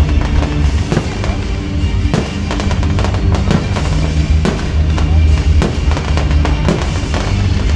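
Festive fireworks bursting in a rapid series of bangs and crackles, several a second, over loud music with a heavy bass beat.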